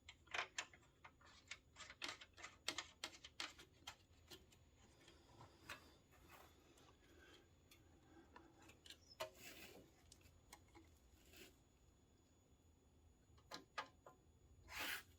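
Faint, irregular clicks and taps of small hardware and plastic parts being handled. They come in a quick run in the first few seconds, then fall off to scattered clicks.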